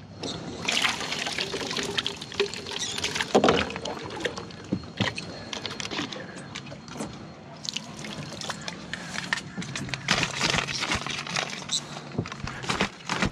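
Water splashing, pouring and dripping, with several louder splashes: live baitfish being scooped up and thrown into the water as chum.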